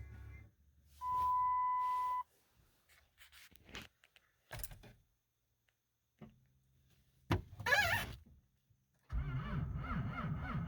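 A pickup truck's steady warning chime sounds for about a second, followed by several clicks and knocks. From about nine seconds in, the starter cranks the cold engine in a fast, rhythmic churn. The engine is cold-soaked at 5 degrees with its block heater left unplugged.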